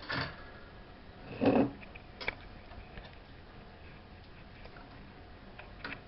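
Light knocks and rattles from kittens pawing and climbing at a wire birdcage on a wooden chest-top: a few brief taps and clatters, the loudest about one and a half seconds in.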